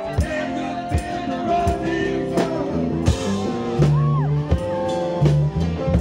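Live band playing a song: acoustic guitar, upright bass and drum kit keeping a steady beat, with a voice singing over it.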